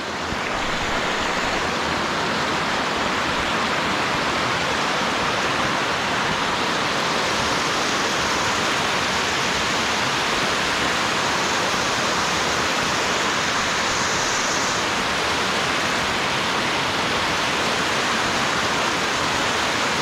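Waterfall rushing steadily, its water running high after a whole night of rain.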